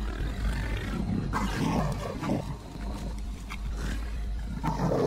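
Big cat snarling and growling, harsh and rough, swelling about a second and a half in and again near the end.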